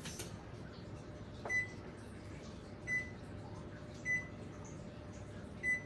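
Electric range's control panel beeping as its keys are pressed to set the bake timer: four short high beeps, about a second or more apart.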